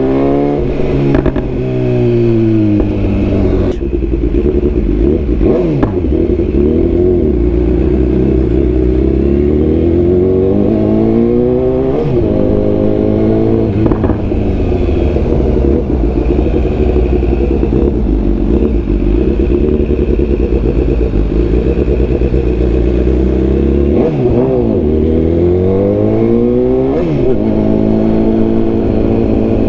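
BMW S1000R's 999 cc inline-four engine accelerating through the gears. Its pitch climbs and drops sharply again and again as the quickshifter shifts up, with a few slower falling sweeps as it slows and shifts down.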